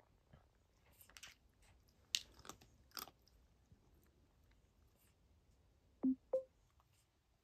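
A cat crunching dry kibble, with several crisp crunches in the first three seconds, then two louder short knocks about six seconds in.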